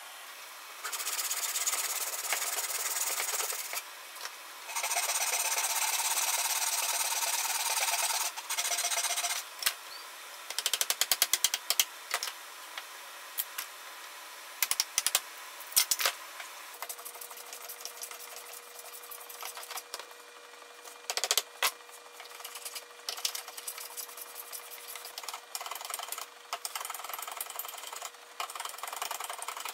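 Hand tools working a wooden spoon blank cut from a 2x4. There are two long, steady scraping strokes of about three seconds each, then a flurry of sharp clicks and taps, then lighter, shorter scraping strokes with a faint steady hum underneath.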